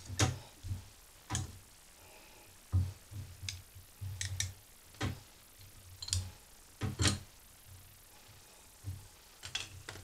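Irregular clicks and light knocks, about a dozen, as hand tools and plastic string-trimmer parts are picked up and handled on a workbench.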